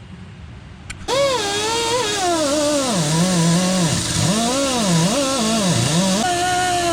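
Wire wheel on a grinder scrubbing seam sealer off car-body sheet metal, starting about a second in; the motor's whine drops and recovers again and again as the wheel is pressed into the work.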